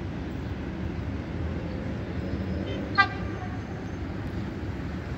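Steady low rumble with one short, sharp horn toot about three seconds in, from a TCDD passenger train approaching in the distance along the line.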